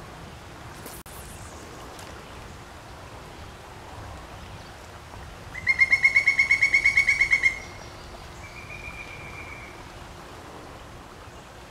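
An animal's loud high trill, a quick even run of about fourteen sharp notes over two seconds about halfway through. A fainter, shorter steady high note follows.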